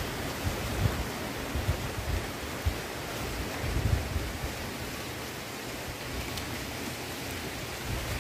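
Wind buffeting the microphone in uneven low gusts over a steady outdoor hiss.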